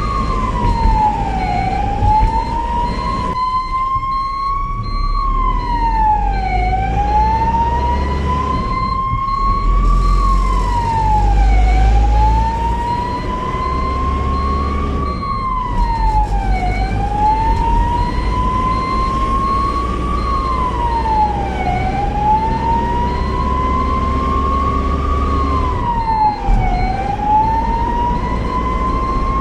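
Ambulance siren wailing: a slow rise in pitch, then a quicker fall, repeating about every five seconds, with a low vehicle rumble underneath.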